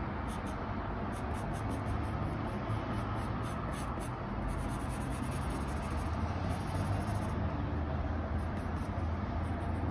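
Graphite pencil scratching on paper as it traces and darkens the outline of a drawn eye, over a low steady hum.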